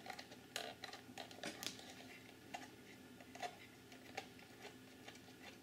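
Faint, irregular small clicks and taps of fingers handling a plastic ProComp5 encoder case while loosening the screw on its fibre-optic port.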